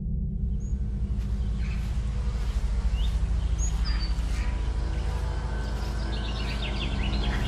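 Birds chirping, with single calls scattered through and a quick run of chirps near the end, over a low steady drone from the film's sound design.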